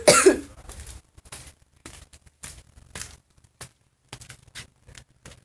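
A person coughs at the very start, then irregular soft footsteps and scuffs as someone walks with the camera.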